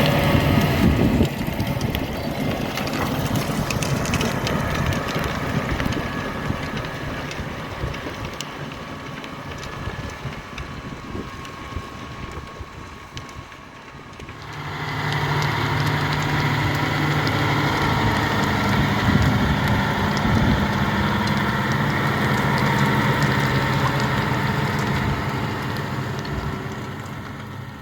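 John Deere 6R 250 tractor's diesel engine working under load while pulling a plough, fading as it moves away over the first half. About halfway through the engine sound jumps back up, close and steady, then eases off near the end.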